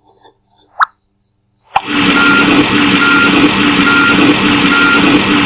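Cartoon sound effect of a vehicle's engine running with a reversing alarm beeping about once a second, starting with a click about two seconds in.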